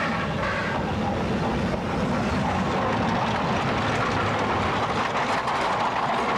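Shay geared steam locomotive, engine No. 7, passing close by at slow speed: evenly spaced exhaust beats, about two a second, at first, then a dense, steady rush of steam and running-gear noise as the engine rolls past.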